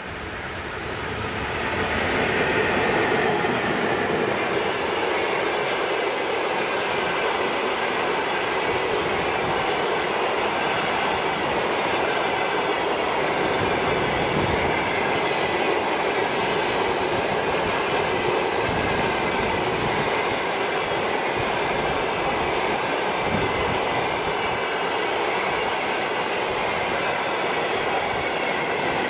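Passenger train hauled by an EP1 electric locomotive passing close by at speed. The rumble builds over the first two or three seconds as the train reaches the spot, then holds steady as the coaches roll past, wheels running over the rails.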